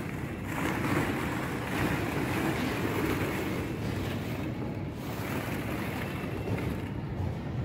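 Steady wind-like rushing noise with no distinct events.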